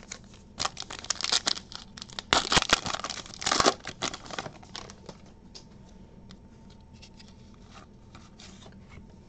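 Foil wrapper of a trading-card pack being torn open and crinkled, loudest about two to four seconds in. Then a few faint soft clicks as the cards are handled.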